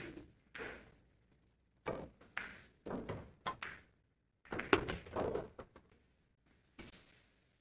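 Pool balls knocking on a billiard table during play: a run of sharp knocks and thuds, with a denser clatter about five seconds in.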